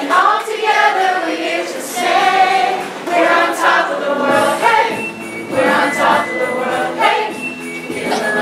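A mixed group of children and adults singing a song together as a choir.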